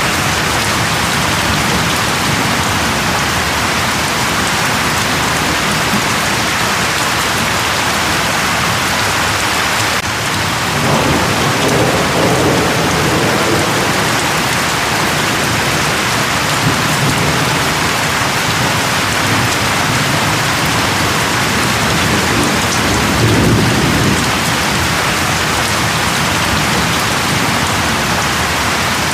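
Steady heavy rain hissing on a surface, with low rumbles of distant thunder about ten seconds in and again near the end.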